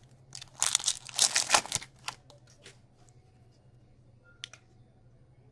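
Foil hockey card pack wrapper crinkling and tearing open for about a second and a half, then faint clicks of cards being handled, with one sharper tick about four and a half seconds in.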